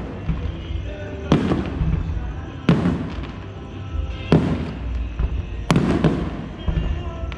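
Aerial firework shells bursting with loud booms, four of them about every second and a half, each trailing off in an echoing rumble. Music plays underneath.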